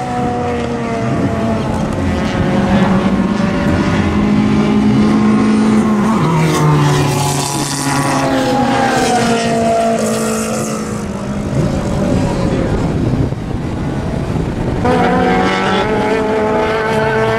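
Race car engines at speed on a circuit, several cars at once, their pitch climbing and then dropping as they shift gears. A fresh pair of engines comes in loud about fifteen seconds in as two cars race side by side.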